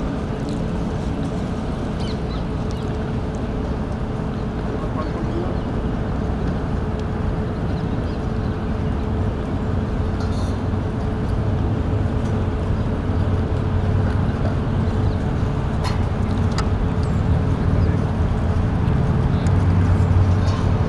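Steady outdoor background noise with a constant hum running through it; a low drone builds up over the last few seconds and the noise grows slightly louder.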